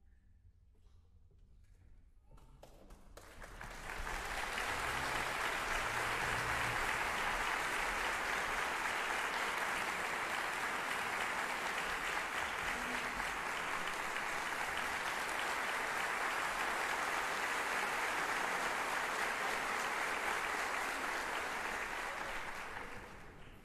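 Audience applauding at the close of an orchestral performance: after a quiet moment the clapping swells in about three seconds in, holds as a steady dense ovation, and fades out near the end.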